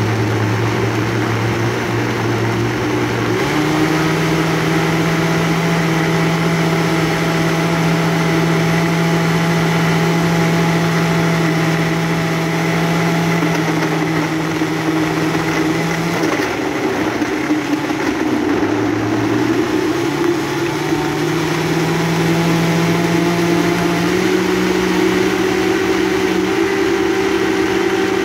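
High-powered countertop blender motor running while it purées kale, spinach, fruit and water into a green smoothie. Its whine steps up in pitch a few seconds in, drops for a few seconds past the middle, then climbs back and steps up again near the end.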